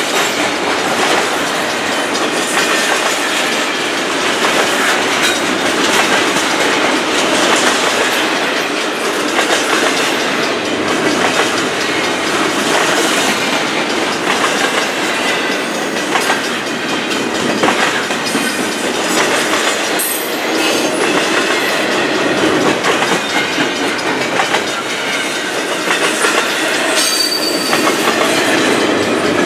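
Double-stack intermodal well cars of a freight train rolling past: a steady loud rumble and clatter of steel wheels on the rails. Two brief high squeals come in the second half.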